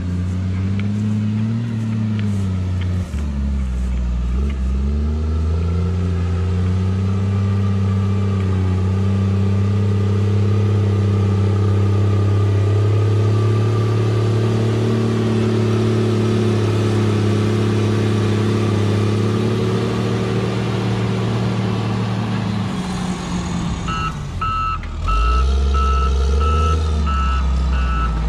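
Heavy earthmoving machine's engine working, its pitch dipping and rising over the first few seconds, then holding steady under load before dropping back. A reversing alarm starts beeping steadily near the end.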